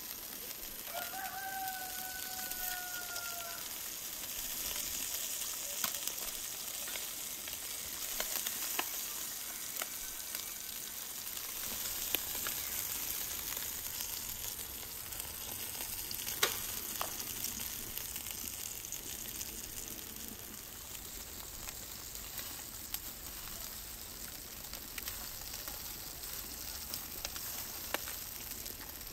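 Fat from spit-roasting whole chickens dripping onto hot charcoal, sizzling steadily with scattered sharp crackles and pops. About a second in, a rooster crows once for roughly three seconds.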